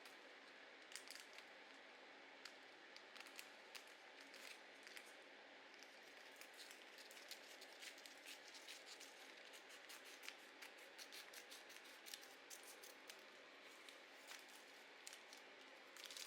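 Scissors cutting paper: many quick, faint snips in an irregular run, coming thicker in the second half.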